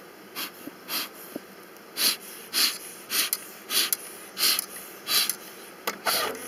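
Bee smoker's bellows being pumped, giving a steady series of short breathy puffs of air about every half to two-thirds of a second.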